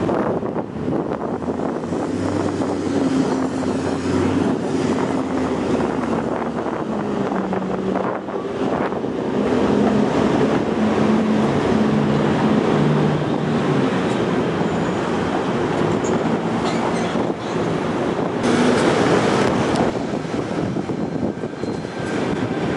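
Light rail train running along a street track, its drive giving steady low hums that shift in pitch in steps, over the rumble of the wheels on the rails. Street traffic runs alongside, with a louder burst of hiss about three-quarters of the way through.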